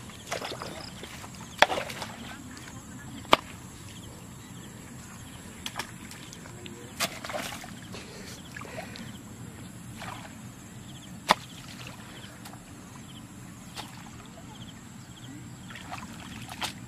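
A hoe chopping into mud and shallow water, with a few sharp knocks and some splashing and sloshing, over a steady low hum.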